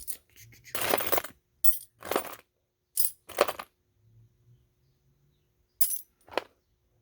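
Metal sewing machine presser feet clinking against each other as they are picked through and dropped into a box: several short clinks and rattles, with a quieter stretch in the middle.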